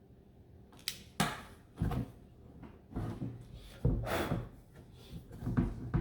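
A series of about five knocks, clunks and scraping handling noises, starting about a second in, as plastic body panel parts are pushed and worked by hand.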